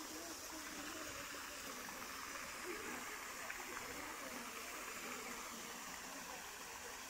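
Pond fountain spraying, a steady splashing hiss of water falling back onto the pond, with faint voices underneath.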